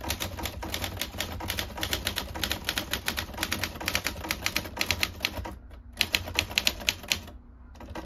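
Everest K2 manual typewriter being typed on quickly: a fast run of key and typebar strikes, a brief pause about five and a half seconds in, then a shorter run that stops about a second before the end.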